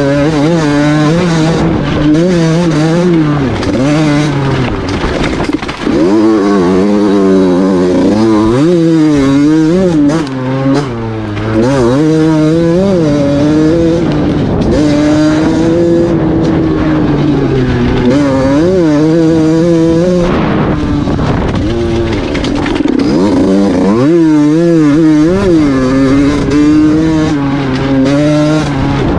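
Small two-stroke KTM 50 engine through a Valenti exhaust, ridden hard with the pitch repeatedly rising and falling. The throttle briefly closes about six and ten seconds in.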